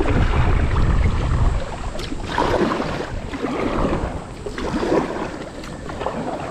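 Kayak paddle strokes splashing in the water, about once a second from about two seconds in, after a low rumble on the microphone at the start.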